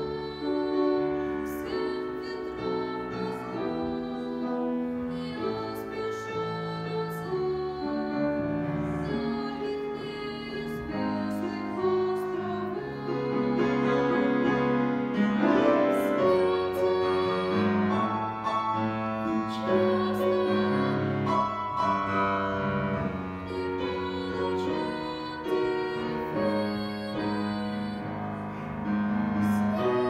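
Grand piano playing a classical accompaniment, with a boy's voice singing over it.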